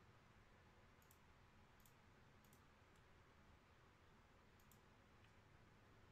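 Near silence with a few faint computer mouse clicks, several in quick pairs.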